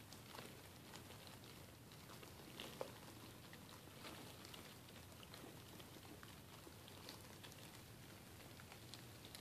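Faint, scattered tiny clicks and patters of Dubia roaches (Blaptica dubia) scrambling over cardboard egg-crate flats, over a low steady hum.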